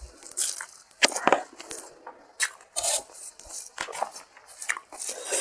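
Close-up eating sounds of a person chewing a meal of rice and ilish fish curry: irregular short wet smacks and clicks.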